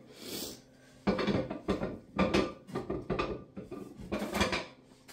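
Kitchen items knocking and clattering on a worktop as they are moved about by hand, a run of short knocks and rattles.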